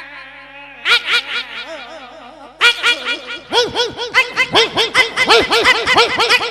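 A man imitating an animal call with his voice into a microphone, hands cupped around his mouth. A wavering, high call gives way, about two and a half seconds in, to a fast run of short repeated notes.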